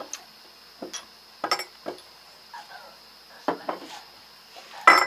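A drinking glass and small bottles being picked up and set down on a wooden table: a handful of short knocks and clinks, the loudest near the end.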